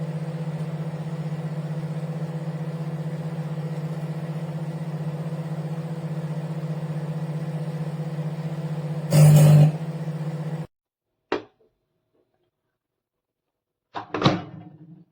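Microwave oven running with a steady electrical hum, with a brief louder surge about nine seconds in; the hum cuts off suddenly near the end, followed by a single click and a short clatter.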